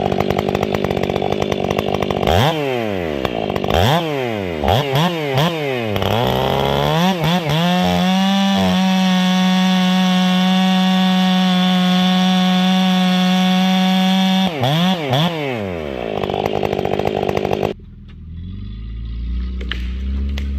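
Two-stroke chainsaw idling, then revved up and down several times and held steady at high revs for about five seconds. It blips a couple more times, falls back to idle and is switched off near the end, stopping suddenly.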